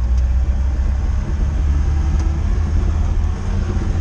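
Lada Niva driving slowly over rough off-road ground, with a steady low engine and drivetrain rumble.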